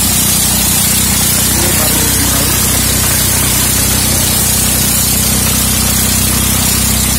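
Engine-driven corn sheller running steadily: a constant low engine hum under a loud, even hiss of kernels and chaff being thrown out of the machine.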